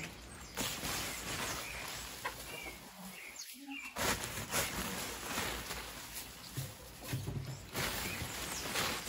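Outdoor rural ambience with small birds chirping now and then, over light rustling and a few soft knocks. The sound drops out briefly about three and a half seconds in.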